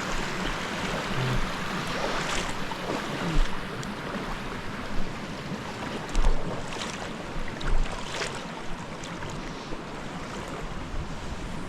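Mountain stream water rushing steadily, with several low thumps of wind buffeting the microphone.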